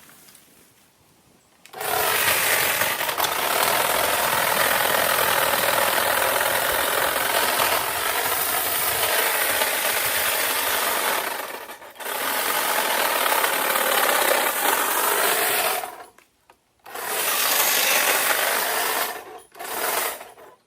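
Small handheld power tool running and cutting tree branches in three long runs, with short pauses about twelve and sixteen seconds in. Its motor pitch wavers as the tool bites into the wood.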